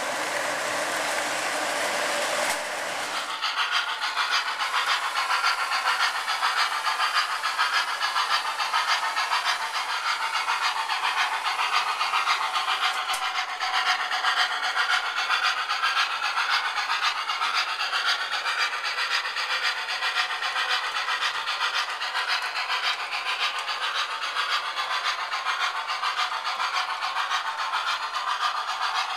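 An O-gauge MTH 0-6-0 switcher model steam locomotive running with its train along the layout track: a steady, rough rasping noise with a quick flutter. About three seconds in it changes abruptly from a smoother hiss to this rougher rasp.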